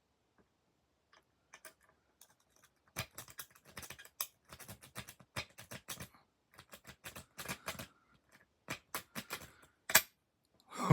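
Metal rake pick scrubbing over the pin tumblers of a lock under tension, a run of irregular light clicks, then one sharper, louder click near the end.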